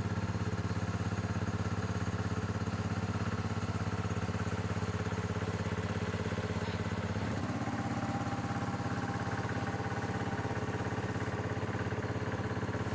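A small engine running steadily with a fast, even throb; about seven seconds in its pitch steps up a little and then holds.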